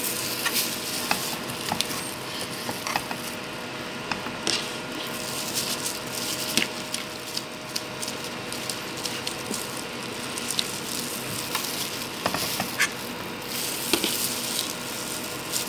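Fresh banana leaves rustling and crackling as they are handled and smoothed flat on a wooden table, with scattered light clicks and taps as a metal scoop puts down soft dough, over a steady hiss.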